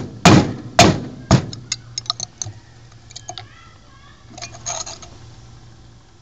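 Hammer tapping a screwdriver set into the corner of a ceramic MMX processor's chip cavity to knock the silicon die and black resin out: four sharp blows in the first second and a half, then a few lighter clicks and taps.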